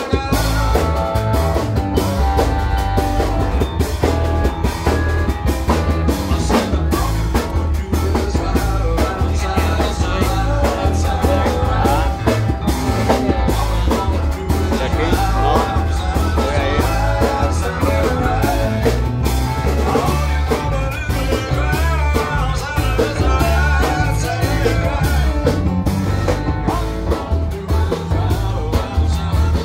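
A live band playing an upbeat rock-and-roll number: singing over keyboard, electric bass guitar and a steady drum beat, with a heavy bass line.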